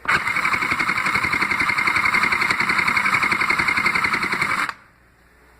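Toy Sew Cool sewing machine running, its mechanism stitching with a fast, even rhythm. It starts abruptly and stops just under five seconds in.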